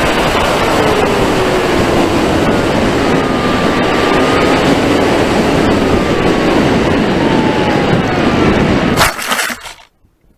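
Onboard audio of a Wing Wing Z-84 flying wing in a low pass: a loud, steady rush of wind over the airframe with faint whines from its Emax 2205 2600kv brushless motor and propeller sliding slowly down in pitch. About nine seconds in there is a brief scraping impact as it comes down into the grass, and the sound cuts off almost to silence.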